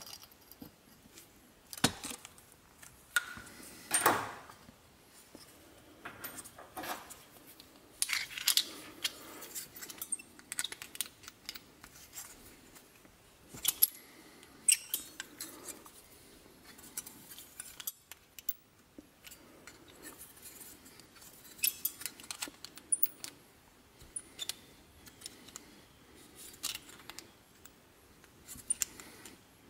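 Copper sheet pieces being cut and handled with hand tools: irregular metallic clinks, snips and short scrapes, with a few sharper clacks.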